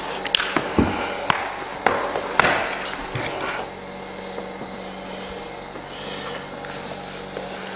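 A handful of sharp clicks and knocks over the first few seconds as vinyl planks and hand tools are handled, followed by a steady low hum.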